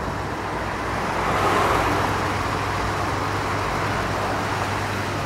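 Steady road-traffic noise with a low hum underneath, swelling slightly about a second and a half in and then holding level.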